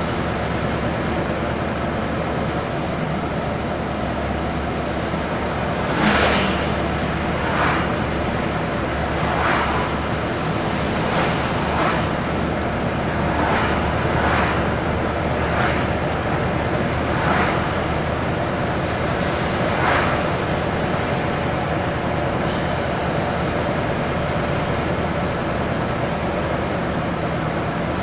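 Steady engine and tyre noise inside a moving vehicle's cab, with a brief whoosh every second or two.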